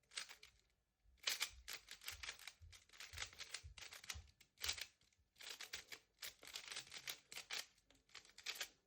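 Rubik's cube being turned fast in a speedsolve: a dense run of quick plastic clicks and clatters, with a brief pause under a second in.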